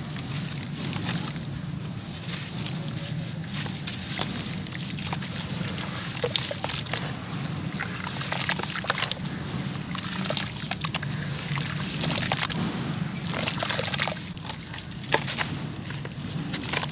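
Hands squeezing and crumbling soaked sand-cement lumps in a tub of muddy water: wet sloshing and dripping, with many short splashes as handfuls of wet grit and pieces fall back into the water.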